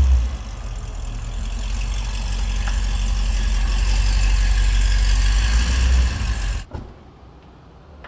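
Car engine running steadily with a deep rumble, growing gradually louder, then cutting off abruptly about six and a half seconds in.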